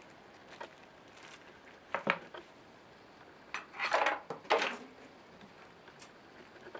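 A clear plastic bag holding two aluminium-alloy pill capsules being handled: the plastic rustles and crinkles and the metal capsules knock lightly, in a short burst about two seconds in and a longer cluster around four seconds in.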